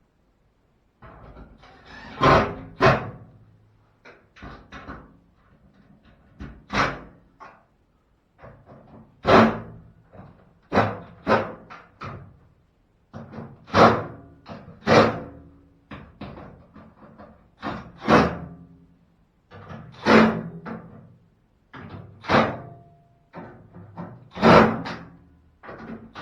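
Knocks and thumps on a washing machine's sheet-metal cabinet as its back cover is fitted and screwed on, an irregular series of sharp hits about every one to two seconds, each ringing briefly.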